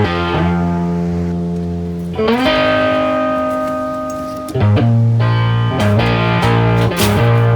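Background music on guitar: held chords change every couple of seconds, then from about halfway faster repeated chords with a bass line come in.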